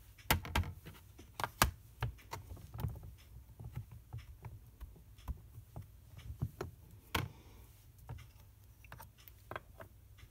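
Irregular light clicks and taps from handling a Stamparatus stamp-positioning tool, its plate and stamp, with a few sharper knocks.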